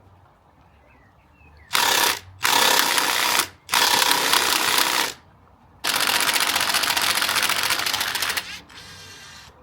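Power drill run in four bursts of a second or more, then a shorter, fainter run near the end, drilling out a broken grease nipple.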